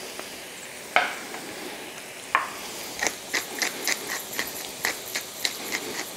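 Wooden pepper mill being twisted over a bowl, grinding in a run of short dry clicks about three to four a second, from about three seconds in. Before that there are two sharp knocks, and frying potatoes sizzle faintly underneath.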